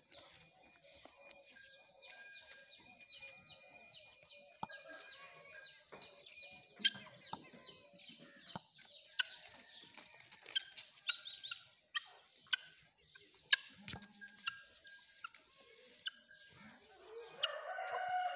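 Fowl clucking and calling, mixed with rapid chirps of small birds and scattered clicks; a louder rising call comes near the end.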